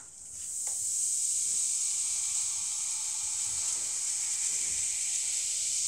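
Cola fizzing steadily as baking powder is stirred into it: a high hiss of bubbles that builds over the first second and then holds. The cola foams but does not erupt.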